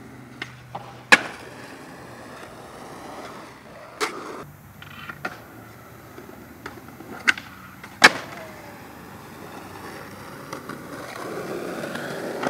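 Skateboard on concrete: wheels rolling with a steady rumble, cut by sharp wooden clacks of the board popping and landing jumps, the loudest about a second in and about eight seconds in, with others around four and seven seconds. The rolling grows louder near the end.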